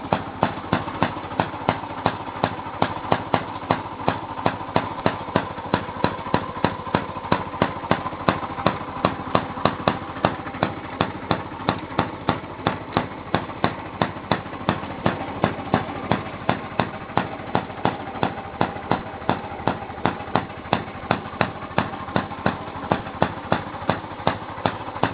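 Single-cylinder gasoline engine of a 1917 Maytag Model 43 washing machine running steadily, with sharp, evenly spaced exhaust pops about three times a second over the steady drone of the running machine. The engine holds its pace under the load of the washer, without bogging down.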